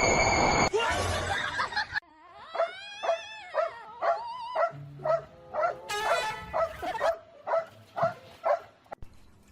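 A dog giving a run of short, high-pitched whining yelps, about two a second, each rising and falling in pitch. Before the yelps there are about two seconds of loud rushing noise with steady high tones.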